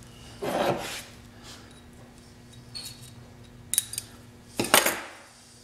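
Snap-ring pliers and small steel parts being handled on a workbench while a snap ring is fitted to a shaper spindle housing: a short scraping rustle about half a second in, then sharp metallic clicks and clinks, the loudest near the end.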